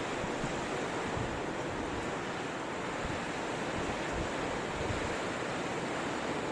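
Blizzard wind blowing steadily, with a low, uneven rumble of gusts buffeting the microphone.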